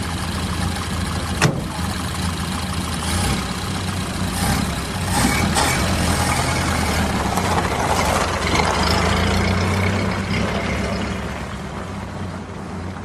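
Old car's engine running steadily, with a sharp click about a second and a half in; it grows louder through the middle and eases off near the end.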